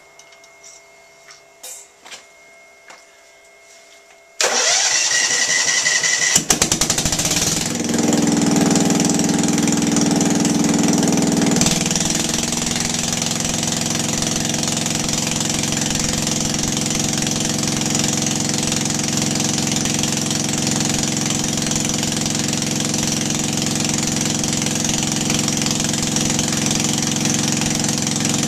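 Generac NP-40G propane generator being started: a few small clicks, then about four seconds in the engine cranks for a couple of seconds and catches. It runs faster and louder for a few seconds, then settles about twelve seconds in to a steady run.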